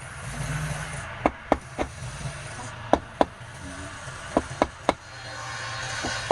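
Sharp wooden-sounding knocks in quick groups of two or three, over a steady low hum and hiss.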